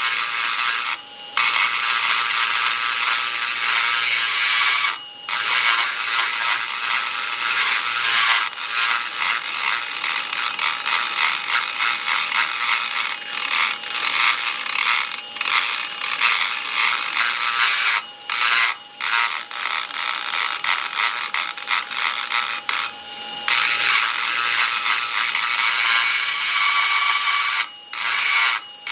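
Handheld rotary tool with a small grinding bit working the inside of a metal knife handle's knuckle guard: a steady motor whine under a dense, gritty grinding of the bit on the metal, broken by several short pauses.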